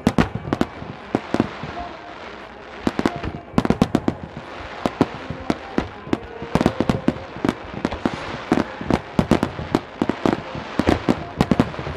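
Aerial fireworks shells bursting in rapid volleys, dozens of sharp bangs in quick succession, scattered in the first few seconds and coming thick and fast from about halfway on.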